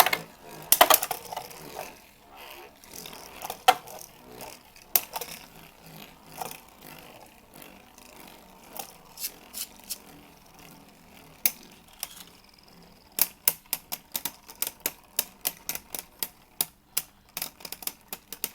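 Two Beyblade Burst tops, one of them Mirage Fafnir, spinning in a plastic stadium with a faint whir and colliding in sharp plastic clacks. A few scattered hits come in the first half; about two-thirds of the way through they turn into a fast run of clicks, several a second, as the tops rattle against each other and the stadium.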